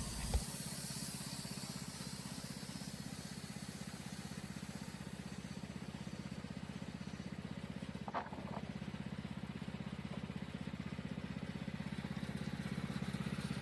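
Wood-Mizer sawmill's engine running steadily with an even, fast pulse, with a short click near the start and a brief higher-pitched sound about eight seconds in.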